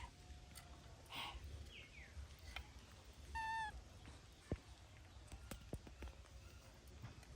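A few faint, short, high-pitched calls from a baby monkey, the clearest a slightly falling squeal about three and a half seconds in, with scattered small clicks around them.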